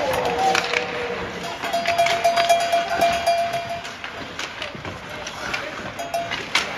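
Ice hockey play on the rink: sharp clacks and knocks of sticks, puck and boards at irregular moments, over a steady haze of arena noise, with a held tone that comes and goes.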